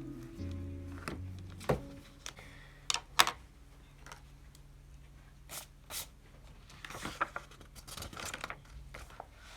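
Background music that stops about two seconds in, then small handling sounds: scattered clicks and taps with some paper-like rustling.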